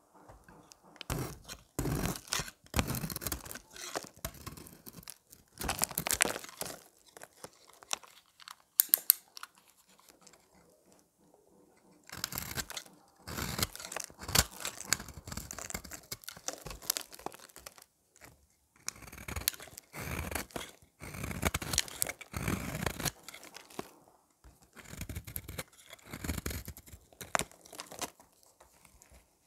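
A utility-knife blade shaving a bar of dry, painted soap, each stroke a crisp, crunchy scrape. The strokes come in runs of several seconds with short pauses between.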